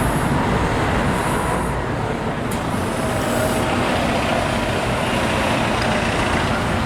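Steady road traffic noise, a continuous low engine rumble with a faint hum of vehicles passing.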